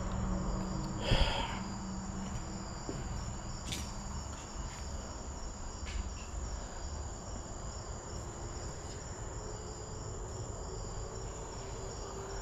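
Crickets chirping steadily, a continuous high-pitched trill, with one brief louder noise about a second in and a few faint clicks.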